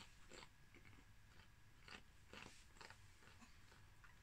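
Faint, irregular crunching of potato crisps being chewed with the mouth closed.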